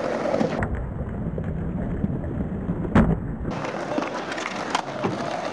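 Skateboard wheels rolling on concrete, with sharp clacks of boards popping and landing; the loudest slap comes about three seconds in.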